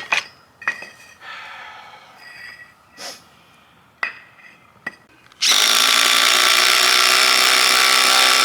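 A few knocks and clanks, then an electric power tool's motor running at a steady pitch for about three seconds, starting and stopping abruptly.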